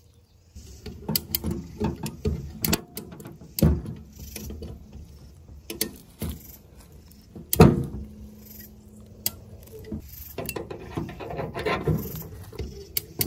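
Irregular knocks, clanks and rattles of tools working the sheet metal of a crushed car quarter panel, with one loud strike about halfway through.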